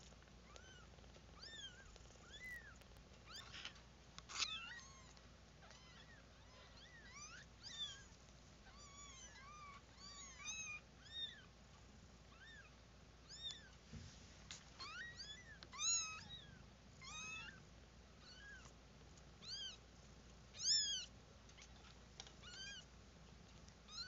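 One-week-old kittens mewing: short, high-pitched cries that rise and fall, repeated many times at irregular intervals, sometimes several in quick succession, with a few louder cries in the second half.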